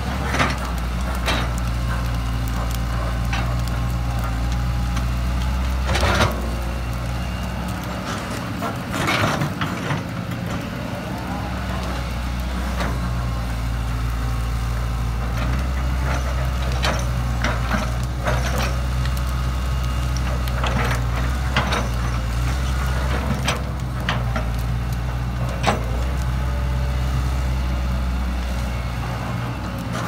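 John Deere 135C excavator's diesel engine running under hydraulic load while it shoves and piles brush, the engine easing off for a few seconds about a third of the way in. Sharp cracks and knocks of branches snapping and the bucket striking wood sound throughout.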